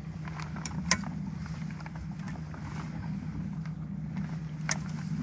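Engine running steadily with a low hum, and two short sharp clicks: one about a second in and one near the end.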